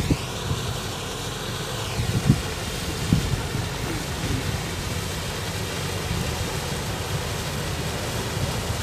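Steady low rumble of a motorised river ferry under way, mixed with wind buffeting the microphone, and a few soft low thumps.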